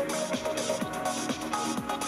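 Background electronic music with a steady beat, about two beats a second, over held synth notes.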